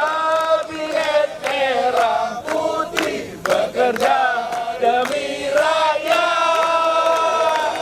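A large group of men and women singing together in unison, holding long notes and moving between them like a song or chant.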